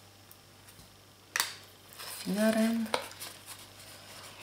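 Square origami paper being folded and tucked by hand: light rustling, with one sharp crackle of the paper about a second and a half in.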